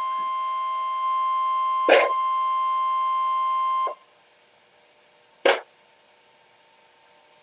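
Emergency alert tone, a steady two-pitch tone that cuts off about four seconds in, with a short click just before the end of the tone and another about a second and a half later in the near-silent pause.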